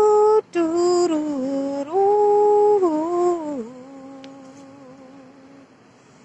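A person humming a slow melody: a few held notes stepping up and down, with a brief break about half a second in. After about three and a half seconds it drops to a softer, lower held note that fades out before the end.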